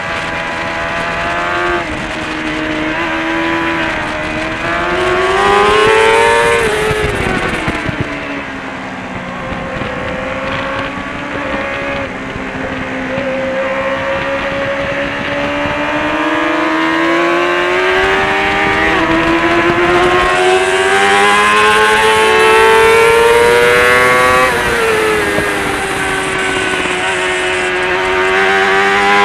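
Onboard sound of a Kawasaki ZXR400's high-revving inline-four engine at racing speed. The revs climb and drop in several long sweeps as the bike accelerates out of corners and shuts off for the next one. Wind rushes across the microphone, strongest in the second half.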